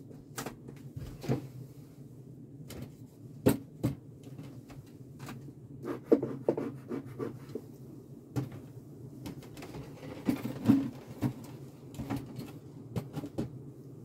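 Wooden beehive parts being worked: a series of sharp knocks, clicks and scrapes as the hive is pried open and boxes and frames are handled, over a steady low hum.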